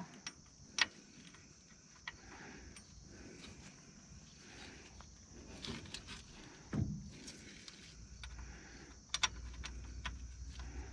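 Faint scattered metallic clicks and taps of bolts being started by hand into a driveshaft U-joint yoke, with a duller thud about 7 s in. A low steady hum comes in about 8 s in.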